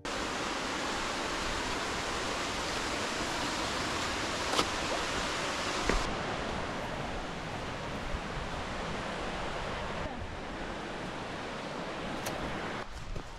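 Waterfall at a gorge: a steady rush of falling water, with a couple of faint clicks. It drops away sharply near the end.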